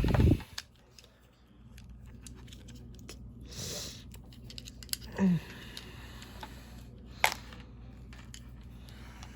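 Unboxing handling noises: a thump at the start, then scattered light clicks and taps, a brief rustle of packaging about four seconds in and a sharp click near the end.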